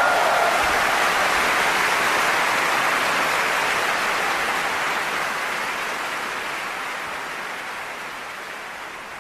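Steady rushing of sea water, a surf sound effect, fading slowly away.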